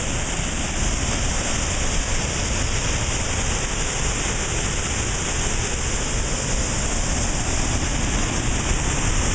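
Waterfall: water pouring over a rock ledge and falling into the gorge below, a steady, unbroken rush.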